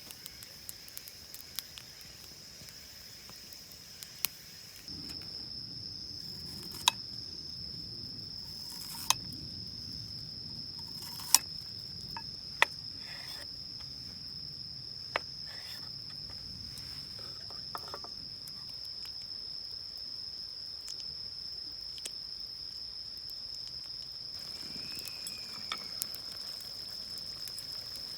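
Insects trilling steadily on one high note, with several sharp clicks and knocks scattered through.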